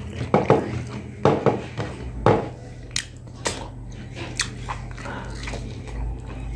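A man chewing and biting chicken close to the microphone: a run of short wet smacks and crunches over the first four seconds or so, then quieter chewing.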